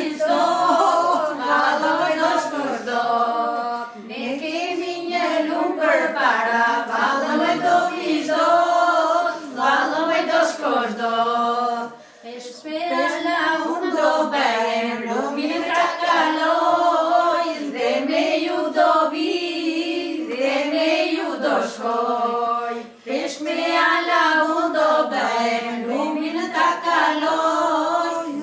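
A group of women singing a traditional Albanian wedding song together, unaccompanied, in long wavering held notes, the phrases broken by brief breaths.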